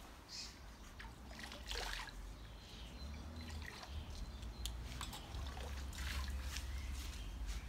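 Low wind rumble on the microphone, stronger in the second half, with scattered faint high chirps and clicks.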